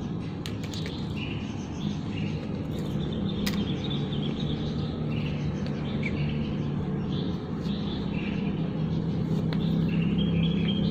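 Birds chirping over a steady low engine hum that grows louder in the second half, with a few sharp clicks.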